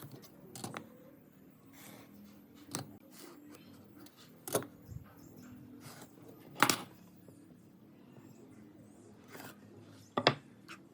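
A few scattered knocks and clicks, about six, of wood pieces and tools being handled, with the loudest knock about two-thirds through and a faint steady hum underneath.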